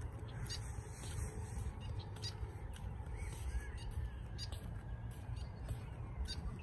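Wind rumbling on the microphone outdoors, with a few faint bird calls about three seconds in.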